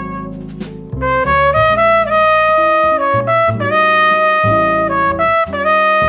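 Jazz trumpet playing a melody of held and moving notes over bass and drums. A held note fades away in the first second, and the trumpet comes back in with a new phrase about a second in. Cymbal strokes tick along underneath.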